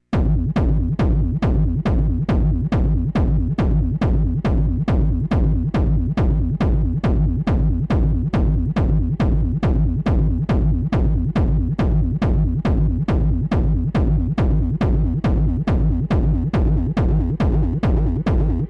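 Techno track with a steady four-on-the-floor kick drum at a little over two beats a second over a continuous deep bass line.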